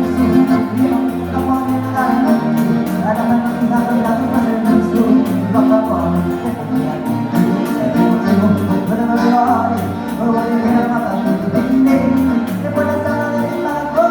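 Live band playing gaúcho dance music: held accordion chords over a bass line that changes notes about once a second, with singing.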